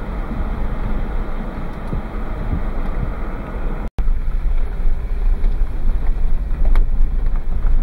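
Road and wind noise of a moving vehicle heard from the cabin, a steady low rumble with wind buffeting the microphone. It drops out for an instant about four seconds in, then comes back louder.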